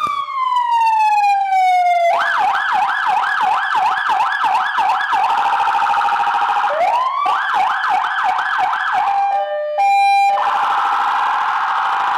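Electronic siren of a Ford municipal police pickup cycling through its tones: a falling wail, then a fast yelp of quick up-and-down sweeps, a rising sweep back into the yelp, and near the end a two-tone alternation and a harsh buzzing tone. It is loud and continuous.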